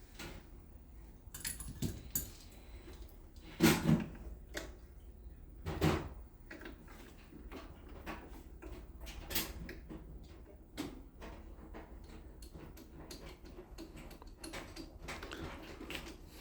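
Scattered clicks, knocks and light clatter of hard objects being handled, with two louder knocks about four and six seconds in.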